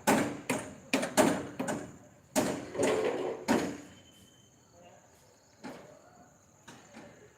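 A rapid run of sharp knocks and bangs during centring (formwork) construction work. The knocks are loudest in the first three and a half seconds, then thin out to a few faint clicks.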